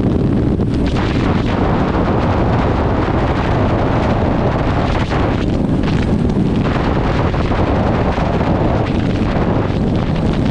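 Heavy wind rushing over the microphone together with the low drone of a Yamaha sport bike's engine cruising in sixth gear at highway speed, steady and loud throughout.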